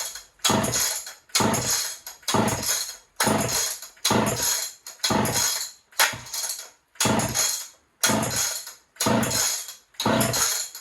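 Homelite XL-76 two-stroke chainsaw being pull-started again and again with the choke on: the recoil starter rope rasps out about once a second, about eleven pulls, with the engine turning over on good compression but not firing.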